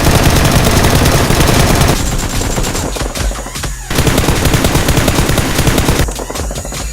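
Rapid automatic gunfire in long, continuous bursts: an added sound effect for toy-blaster shooting. It eases off briefly about two seconds in and again near the end.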